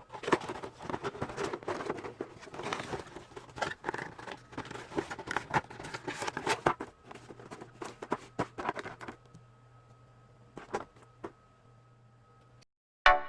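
A plastic toy figure and its packaging being handled: rustling with many small clicks and taps for about nine seconds, then a few separate clicks, then it goes quiet.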